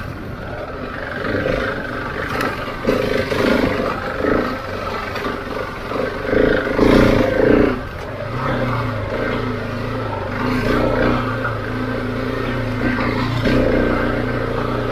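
Husqvarna 701's single-cylinder engine running as the bike is ridden, pulling harder for several seconds in the middle, then settling into a steady, lower drone for the rest.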